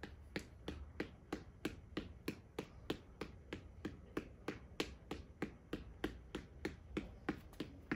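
Fight reflex ball, a ball on an elastic cord tied to a headband, being punched over and over: a quick, even run of sharp taps, several a second, as fist meets ball in a steady rhythm.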